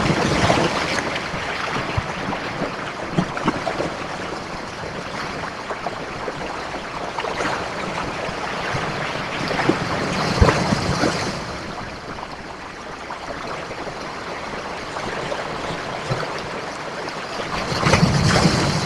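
Ocean surf: waves breaking and washing back in a steady rush, surging louder about ten seconds in and again near the end.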